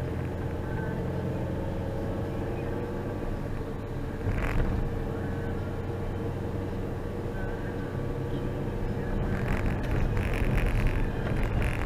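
A car running steadily with an even low engine hum and road noise, a brief louder noise about four seconds in, and rougher, noisier sound near the end.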